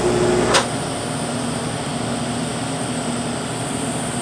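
TIG welding arc buzzing, cut off with a sharp click about half a second in, followed by a steady machine hum with a faint high whine.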